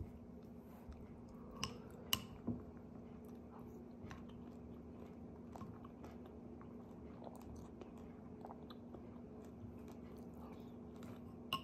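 Quiet room tone with a steady low hum and scattered small clicks and taps, three sharper clicks in the first few seconds and another near the end.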